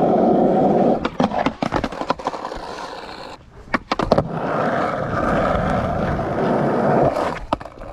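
Skateboard wheels rolling on concrete, broken up by a run of sharp clacks and knocks from the board about a second in. After a short lull the board rolls again, and a few more clacks come near the end.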